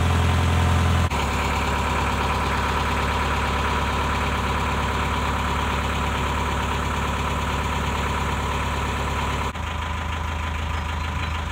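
Narrowboat's diesel engine running steadily under way, a low even hum. Its level drops slightly about a second in and again near the end.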